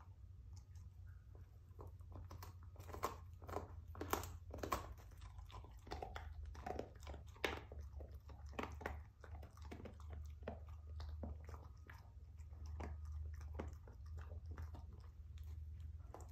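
A dog crunching and gnawing on a rawhide chew bone: a run of irregular, crisp crunches, the loudest bites coming about three to five seconds in.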